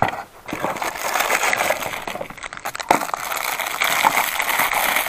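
Cardboard box flaps being opened and a plastic bag crinkling and rustling as a shark-fin antenna is unwrapped, with a couple of sharper taps, one at the start and one about three seconds in.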